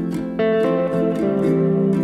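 Background music: plucked guitar playing a melody, with a new chord struck about half a second in.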